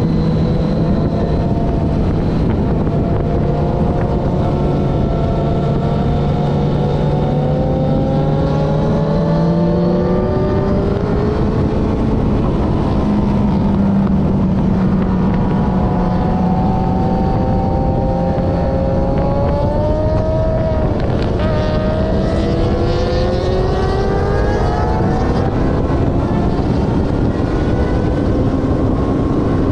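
Honda CBR900RR's inline-four engine under hard riding. Its pitch climbs and drops again several times as it accelerates and shifts, over heavy wind rush on the bike-mounted microphone.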